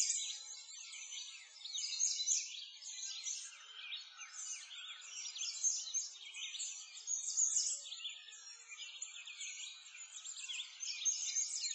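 A dense chorus of many small birds chirping and twittering together without a break, quick high chirps overlapping one another.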